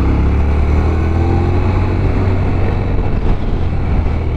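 Motorcycle running on the road, its engine note under a heavy, steady rumble of wind noise on the microphone.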